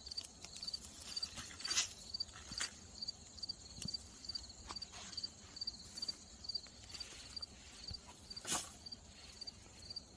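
A cricket chirps in a steady pulsing rhythm over scattered scrapes and knocks of digging in garden soil. The two loudest scrapes come about two seconds in and again near the end.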